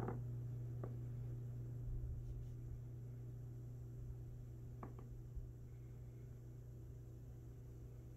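Steady low hum with a few faint clicks: one near the start, one about a second in, and a pair around five seconds in.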